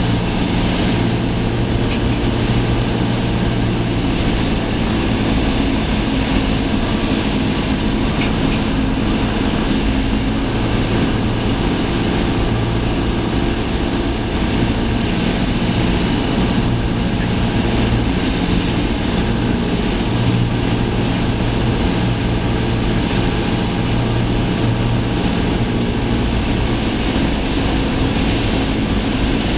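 Cessna 172's piston engine and propeller running at a steady drone on approach, heard from inside the cockpit.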